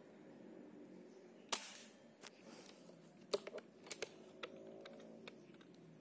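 A PCP air rifle (bocap) with a 300cc air tube fires once, about one and a half seconds in: a sharp crack with a short hiss trailing off. About two seconds later comes a run of quick sharp clicks, as the rifle's action is worked and the next pellet is loaded by hand.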